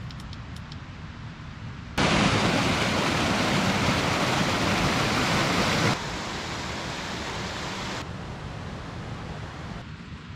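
Rushing noise of water in edited stretches: a loud burst of about four seconds begins two seconds in and cuts off suddenly. A woodland mountain stream then flows over rocks more quietly, dropping again near the end.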